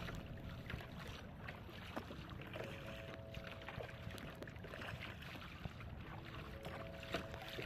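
Water washing against a kayak's hull as it moves across choppy bay water, with wind rumbling on the microphone; a faint, steady wash with a few small splashes and knocks.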